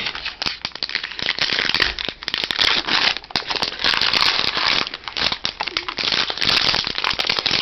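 Foil wrapper of a Topps football card pack crinkling and crackling as it is torn open and handled.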